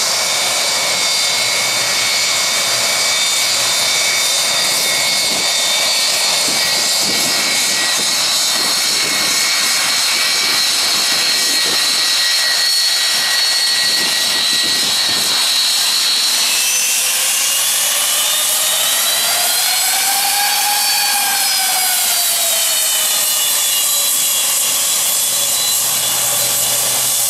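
Boeing 757 jet engines running as the airliner taxis along the runway: a loud steady rush with high-pitched whining tones. A little past halfway the whine changes, rising in pitch and then falling back over several seconds.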